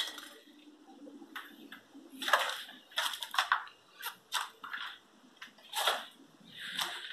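Footsteps crunching and scraping on gritty debris, a handful of irregular steps, some louder than others.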